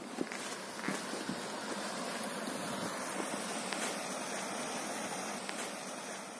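A few footsteps on rock early on, then a steady rushing outdoor background noise that fades near the end.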